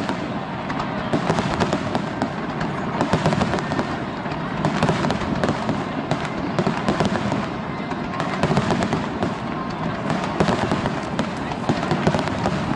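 Fireworks display: a dense, continuous crackle of many sharp pops packed close together, at a steady loudness without one standout boom.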